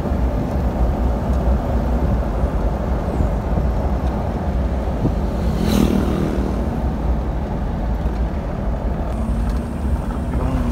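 Car driving along a road: steady low engine and road rumble with tyre noise, and a brief louder burst of noise about six seconds in.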